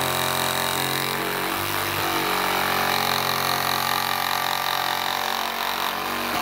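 Milwaukee cordless compact reciprocating saw running steadily as its blade cuts through the last tab of a Harley-Davidson saddlebag lid, with a brief dip in speed about a second and a half in.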